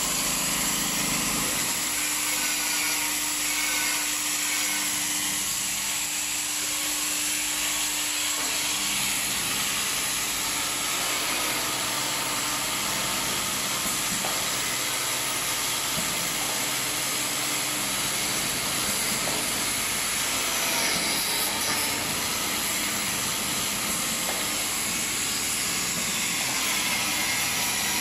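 Automatic vacuum cup sealing machine running: a steady hiss over mechanical running noise, with a faint steady hum in the first few seconds.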